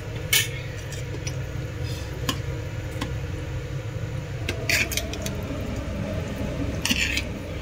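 A metal spoon scraping and clinking against a cooking pot as paneer is spooned into saag and stirred: a few short scrapes over a steady low hum.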